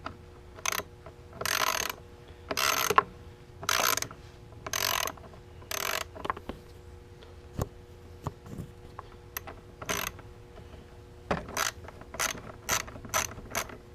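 Socket ratchet wrench clicking as it is swung back and forth on a bolt: about six ratcheting strokes, one a second, then a few single clicks, then a quicker run of short strokes near the end.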